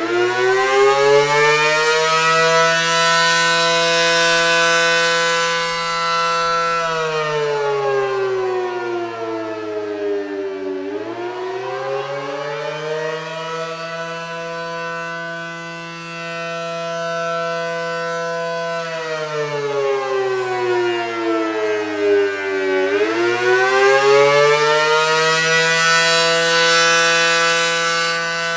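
ACA Allertor 125 rotating electromechanical siren with 9/12 port ratio, sounding the Attack wail as a two-note chord. It winds up at the start, holds for about six seconds, then twice slides down and climbs back to full pitch.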